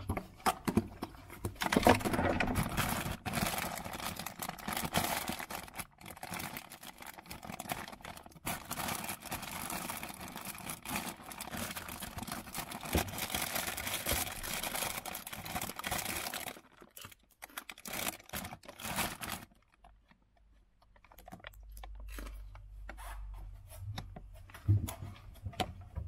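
Plastic food packaging rustling and crinkling as it is handled close by, in dense crackles for about sixteen seconds. Then quieter, sparser handling, with a few low thumps near the end.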